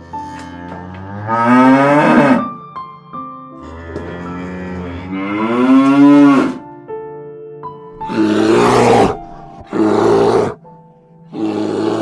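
Bovine lowing: two long calls rising in pitch, then three shorter, rougher calls near the end, over background music with held notes.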